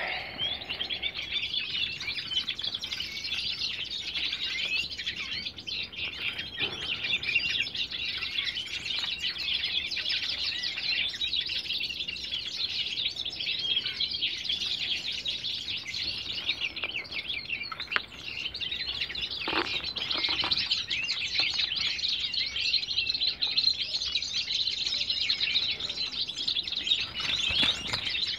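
Small songbirds chirping and twittering without a break, many high calls overlapping one another, with a few faint knocks about two thirds of the way in.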